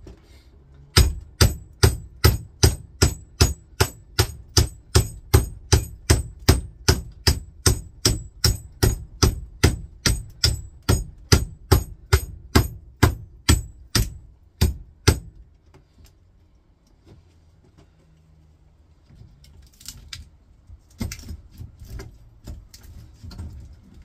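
Hammer striking the steel laminations of a microwave oven transformer clamped in a vise, a fast even run of about three blows a second lasting some fourteen seconds, driving the E-shaped laminations out through the copper windings. The blows stop about fifteen seconds in; a few lighter knocks and clatter follow near the end.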